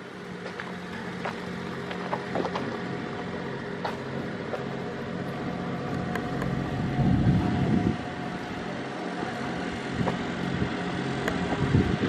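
A steady mechanical hum with scattered light clicks. Gusts of wind buffet the microphone about seven seconds in and again near the end.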